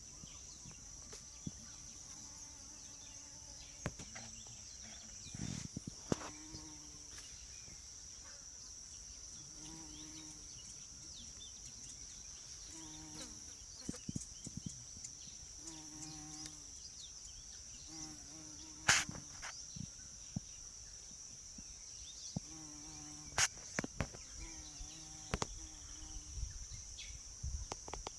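Insects shrilling in one steady high-pitched drone, with a short low animal call repeating every few seconds and a few sharp clicks.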